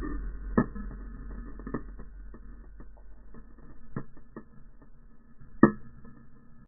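A few scattered sharp knocks and clicks, heard muffled and dull with no treble, over a low rumble; the loudest comes about five and a half seconds in.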